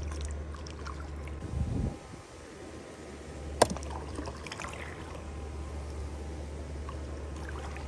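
Water lapping and trickling against a small inflatable boat over a low steady rumble, with one sharp click a few seconds in.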